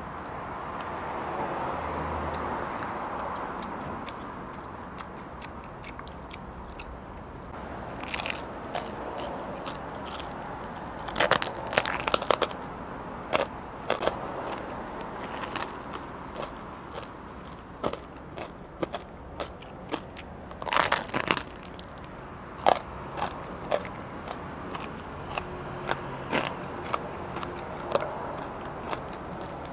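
Close-miked biting and chewing of crispy pork knuckle skin. Soft chewing at first, then sharp crackling crunches from about eight seconds in, loudest in two dense bursts around eleven and twenty-one seconds in.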